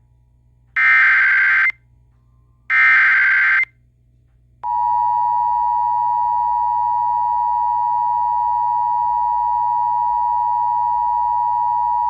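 Emergency Alert System header: two short bursts of SAME digital data screech, each about a second long, carrying the coded flash flood warning. Then the steady two-tone EAS attention signal (853 and 960 Hz) starts about five seconds in and holds.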